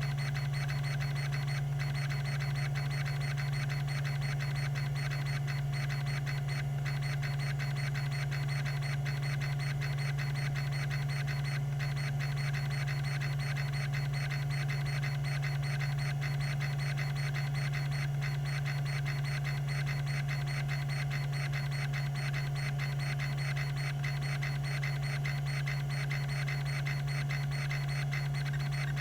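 Tandon TM362 20 MB MFM hard drive running, its spindle giving a steady low hum while the linear rack-and-pinion stepper actuator seeks nonstop, a rapid, even chattering of head steps.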